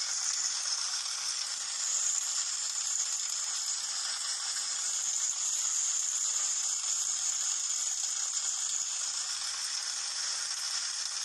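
Hail falling: a dense, steady rattling patter of hailstones that does not let up.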